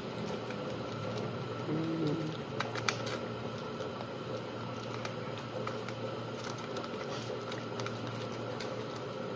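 Faint crinkles and scattered clicks from aluminium foil and raw chicken breast being handled by hand, over a steady background hum. A person gives a short hum about two seconds in.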